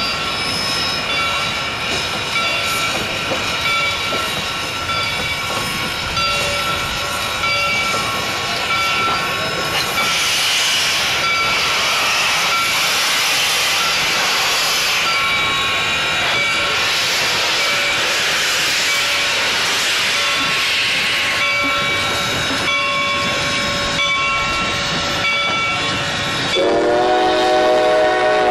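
Steam locomotive hissing as Reading & Northern Pacific-type 425 rolls slowly past, venting steam at its cylinders; the hiss is strongest in the middle. Near the end a steam whistle suddenly sounds a chord of several notes.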